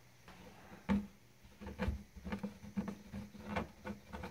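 Fingers picking and scraping frost and ice off a wooden wall stud, heard as a string of faint, irregular ticks and crackles over a low steady hum.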